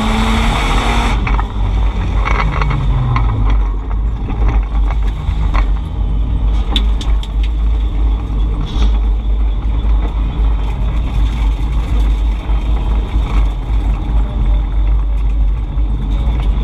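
Drift car's engine winding down in revs as a tyre skid ends about a second in, then a steady low rumble of the car rolling along, with scattered small clicks and knocks.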